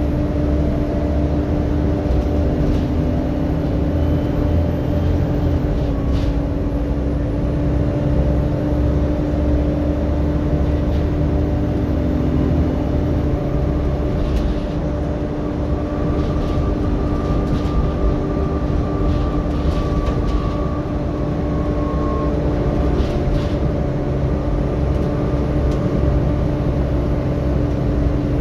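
Volvo B7TL double-decker bus under way, heard from the lower deck. Its diesel engine and the road give a steady drone, with a constant whine over it. The title points to the bus's engine cooling fan as the feature of this recording. A higher tone joins for several seconds past the middle, and there are a few light rattles.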